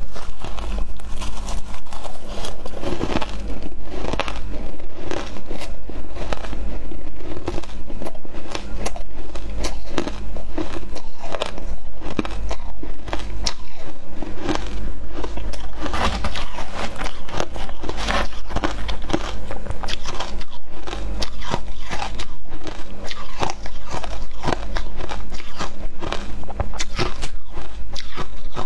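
Crushed ice dusted with matcha powder being bitten and chewed, a loud, dense run of crisp crunches and cracks close to a clip-on microphone.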